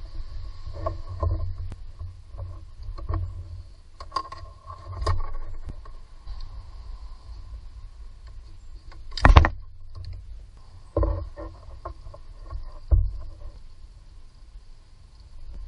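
A hand rubbing and knocking on the engine's top cover close to the microphone, over a low rumble. The loudest knock comes about nine seconds in, with smaller ones a couple of seconds and four seconds later.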